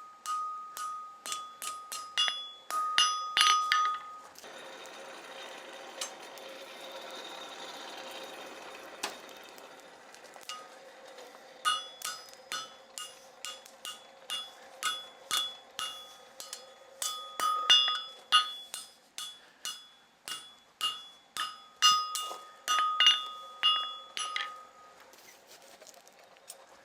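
Hand hammer striking hot iron on an anvil, each blow ringing out with a bright metallic tone, in quick runs of strikes as the bar is bent over the anvil's bick. About four seconds in the hammering stops and a steady rushing noise fills several seconds, then the ringing blows resume and run on until near the end.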